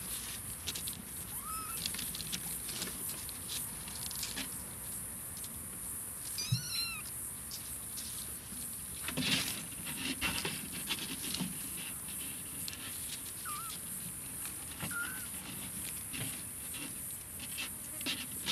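Kittens scuffling in dry leaves and soil: irregular rustling and scratching, busiest about nine to ten seconds in, with a few brief high-pitched calls. A steady high hiss runs underneath.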